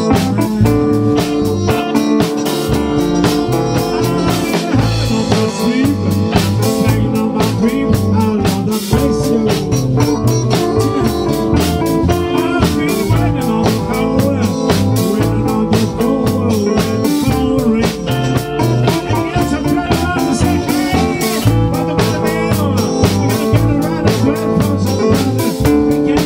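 Live band playing a blues-rock number on electric guitars and a drum kit, with a steady beat.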